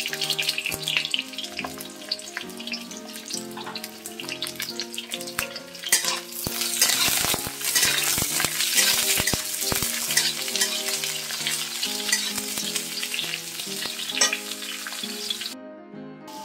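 Eggplant and pointed gourd pieces sizzling in hot oil in a wok. From about six seconds in, a metal spatula stirs and scrapes them and the sizzling grows louder.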